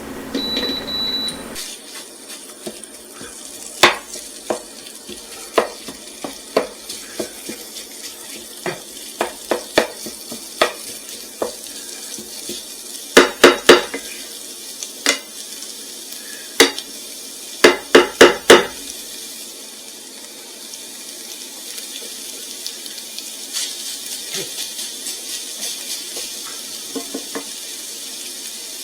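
Pork sausage browning in a frying pan with a steady sizzle, while a utensil knocks against the pan as the meat is broken up. The knocks are scattered, with two quick runs of three or four taps around the middle. Over the last third only the sizzle is left.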